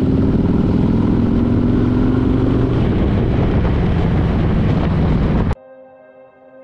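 Harley-Davidson motorcycle's V-twin engine running at road speed with wind and road noise, its pitch rising slowly as it gathers speed over the first few seconds. Near the end it cuts off abruptly to quiet ambient music.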